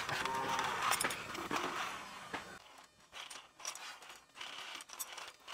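Bicycle chain being fed through a PVC conduit pipe: faint metallic rattling and scraping with scattered light clicks.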